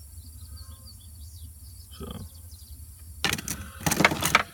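Metal tool chest drawer pulled open on its slides, the metal tools inside clattering, starting about three seconds in. A low steady hum sits underneath.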